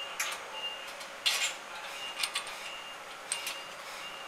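Scattered light metallic clicks and knocks of bolts and screws being handled and hand-tightened on an aluminum canopy support frame, the loudest knock about a second in.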